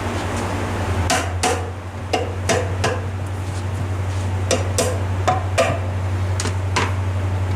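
Metal tool knocks and taps on the Tomos A35 moped engine during disassembly: about ten sharp, irregular strikes with a short ring. A steady low hum runs underneath.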